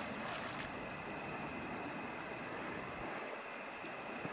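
Night insects calling steadily in several high-pitched tones, over a faint even hiss.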